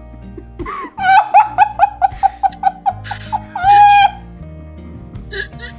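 Excited, high-pitched laughter: a fast run of laughs, about six a second, starting about a second in and ending in a short held shriek near four seconds. Soft background music plays underneath.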